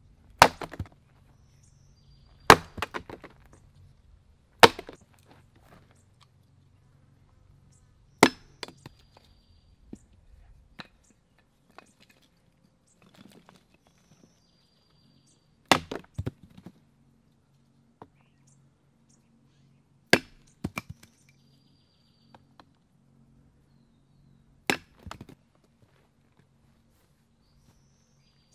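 A Gransfors Bruks carpenter's axe splitting firewood on a chopping block: about seven sharp chops spread a few seconds apart, each followed by a short clatter of split wood falling.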